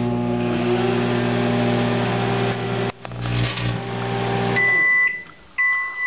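Microwave oven running for about five seconds on a halved grape: a steady electrical hum with a buzzing hiss over it as the grape arcs into plasma, briefly dropping out near the middle. The oven stops and beeps twice near the end as the cycle finishes.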